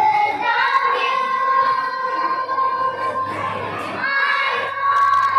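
A group of schoolgirls singing together, holding two long notes, the second starting about four seconds in.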